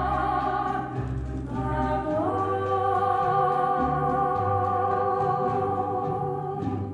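Choral music: a choir holding long sustained chords over a pulsing low bass line. The chord steps up in pitch about two seconds in, and the music fades out at the very end.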